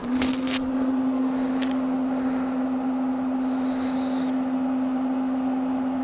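Suburban NT-16SEQ propane furnace's blower fan kicking on with a few clicks, then running with a steady hum.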